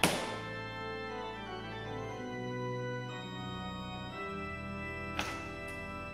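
Background organ music: slow, held chords that change about once a second. A sharp click sounds at the start, the loudest moment, and a softer one about five seconds in.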